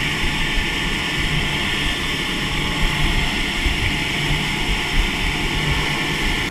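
Four outboard motors running at speed, a loud steady drone mixed with the rush of wind and spray past the boat's stern.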